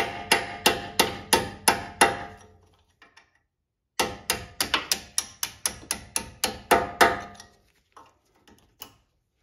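Hammer striking a punch to drive a pin out of a Lexus GX470 front brake caliper: sharp metal-on-metal blows, about three a second, each with a short ring. The blows stop for about a second, then another run follows, and a few faint taps come near the end.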